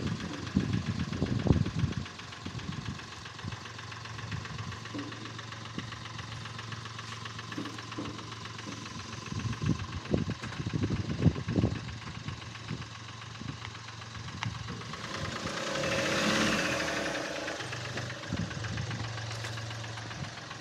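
Mahindra Bolero's diesel engine running with a light clatter as the SUV creeps along at low speed. It grows louder about three quarters of the way through as the vehicle comes close.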